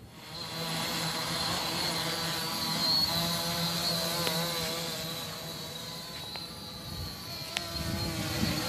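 Homemade tricopter's three electric motors and propellers starting up a moment in, then buzzing steadily with a high whine as it takes off and flies, the pitch wavering up and down as the throttle changes. A few sharp ticks sound through it.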